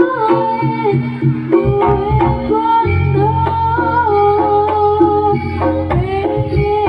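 Live jaranan music: a held, wavering melody line with drum strokes, and a deep steady tone through the middle.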